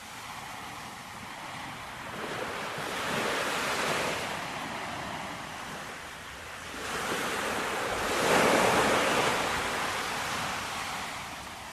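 Ocean waves washing in and drawing back, a soft swell about three seconds in and a louder one about eight seconds in.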